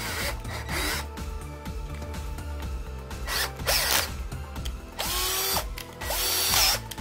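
Aimsak cordless drill motor triggered in three short bursts in the second half, each spinning up with a rising whine.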